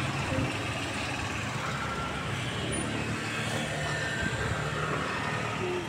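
Small open-sided, roofed handlebar vehicle on the move: a steady low motor hum under road and wind noise.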